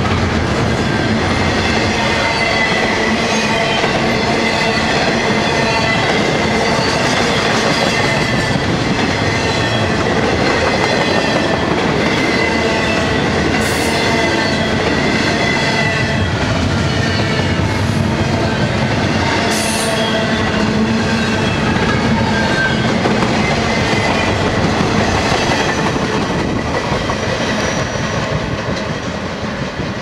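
Double-stack intermodal freight cars rolling past close by, with a steady clatter of steel wheels over the rail and a high ringing squeal from the wheels. The sound falls off near the end as the last cars go by.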